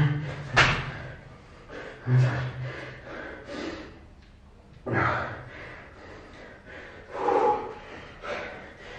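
A person doing burpees: hard, noisy breaths and thuds of landing on the floor, repeating every two to three seconds.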